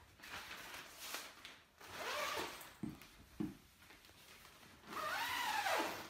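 Zipper on the fabric cover of a Manatee portable clothes dryer being zipped closed in several rasping pulls, the longest near the end, with a couple of soft knocks from handling the cover.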